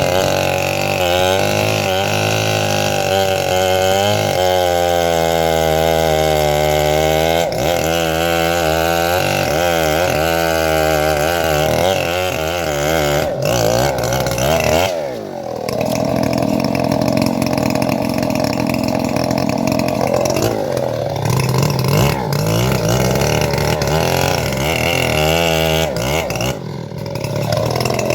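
Engine of a homemade bandsaw mill running under load as it saws through teak, its pitch wavering. About halfway through the pitch falls, dips briefly, then settles into a steadier, lower note.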